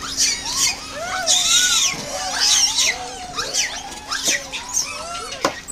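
A troop of macaques calling over one another: many short rising-and-falling chirps and coos mixed with shrill squeals, with a few sharp clicks near the end.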